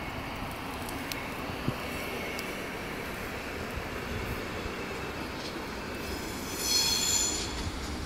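Electric commuter train pulling away over the rails, a steady running noise, with a brief high-pitched wheel squeal about seven seconds in.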